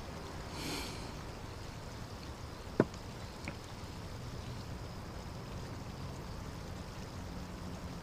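A ceramic mug set down on a wooden table, one sharp knock about three seconds in with a lighter click just after, over a steady low hiss of running water.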